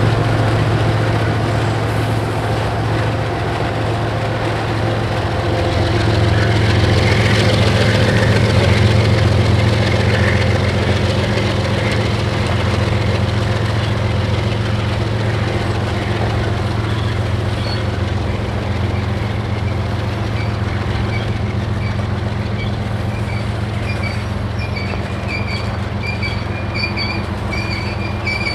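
A GE ES44AC diesel locomotive's V12 GEVO engine working steadily as it pulls a string of tank cars and hoppers past, with the rumble of wheels rolling on the rails. The engine swells a few seconds in. From about two-thirds of the way through, a thin, high wheel squeal comes and goes over the rolling noise.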